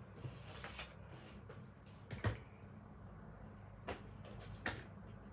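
Paper craft materials being handled: faint rustling, then three short knocks, the loudest a little past two seconds in and two lighter ones near the end.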